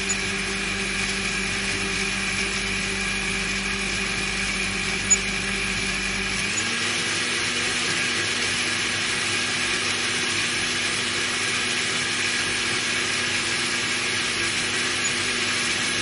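Electric blender motor running steadily with a whine over a wide rushing noise. About six and a half seconds in its pitch steps up slightly and the deep hum beneath it drops away, with a brief click just before.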